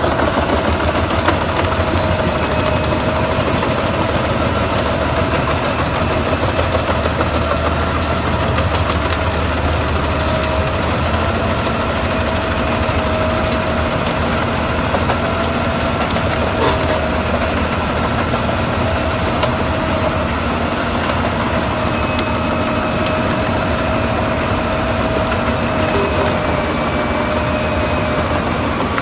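Albach Diamant 2000 self-propelled wood chipper running at work, its loader crane feeding branches and brushwood into the chipper. A loud, steady drone with a steady high whine over a low rumble.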